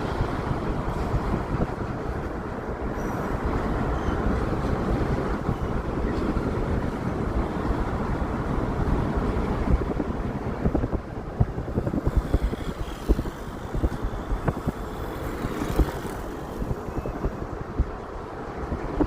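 Freight train of autorack cars rolling past: a steady rumble of steel wheels on rail, with irregular clacks and knocks that stand out more in the second half.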